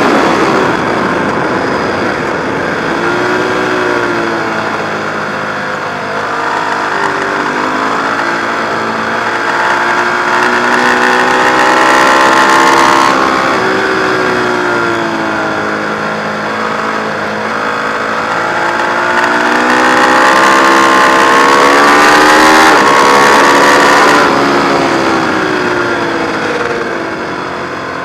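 Ducati 1098's L-twin engine heard onboard at track speed, its pitch climbing and falling with the throttle. The engine note cuts back sharply twice, about halfway through and near the end.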